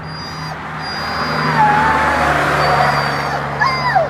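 A vehicle passes on the road, its engine and tyre noise swelling and then easing off, while a Doberman on a leash whines in thin wavering tones, ending in a sharp falling whine just before the end.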